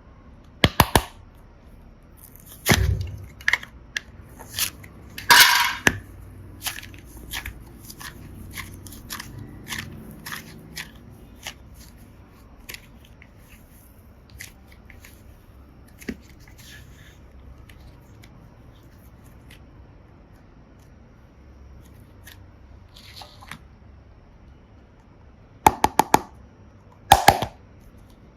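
Slime and small plastic toys handled close to the microphone: crisp clicks and crunchy crackles in short clusters, a run of light ticks through the first half, a quieter stretch, then two sharp bursts of clicks near the end.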